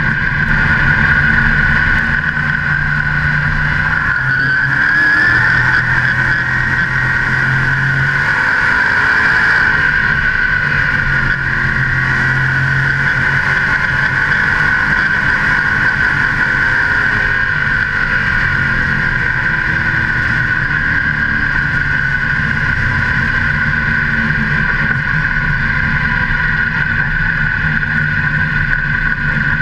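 A modified race car's engine, heard from on board, running hard and loud at racing speed around an oval, its pitch shifting only slightly through the turns.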